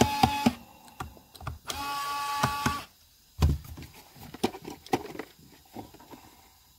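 A small electric motor whirs at a steady pitch in two short bursts, the second about a second long and a little higher, followed by scattered light clicks and knocks of handling.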